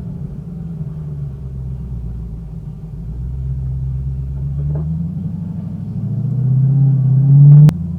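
Supercharged 6.2-litre Hemi V8 of a 2020 Dodge Challenger SRT Hellcat Redeye running at low revs. It grows gradually louder over the last few seconds, then breaks off with a sharp click and an abrupt drop near the end.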